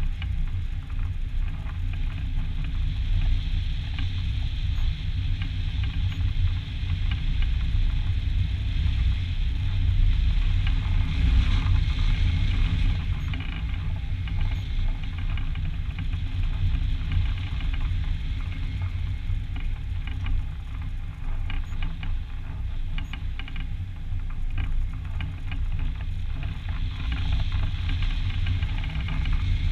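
Wind rushing over a wing-mounted camera on a hang glider in flight: a steady low rumble with an irregular crackle of buffeting on top, swelling briefly about ten seconds in.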